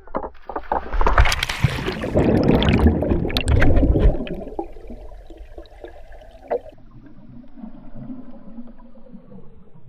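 Splashing and rushing water as the camera plunges into water. After about four seconds it gives way to muffled underwater gurgling and bubbling.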